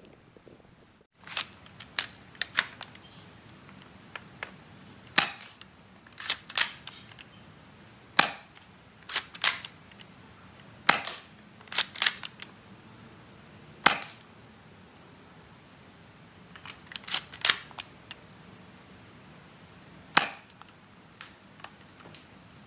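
C.1911A+ spring-powered airsoft pistol fired several times through a chronograph, each shot a sharp snap a second or more apart from the next. Lighter clicks and clacks come between the shots as the slide is racked to cock the spring.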